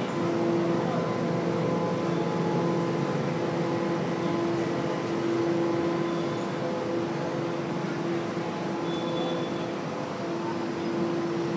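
Busy city street noise with a steady machine hum running through it, holding one pitch throughout, over a general wash of traffic.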